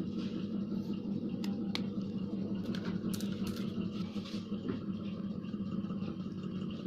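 Battery-powered toy train's small motor running with a steady hum, with a few sharp clicks about three seconds in.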